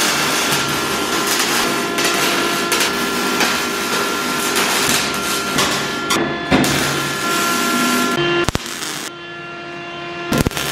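Arc welding on the corrugated steel wall of a shipping container: a steady crackling sizzle as old screw and drill holes are welded shut to make the container waterproof. The crackle breaks off about eight seconds in.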